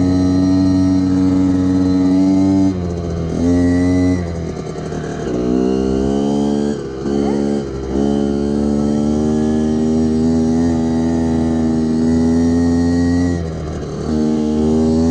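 Small motorbike engine running at steady revs with a clear tone; the revs drop and pick up again several times as the throttle is eased off and reopened, around three seconds in, through the middle, and once near the end.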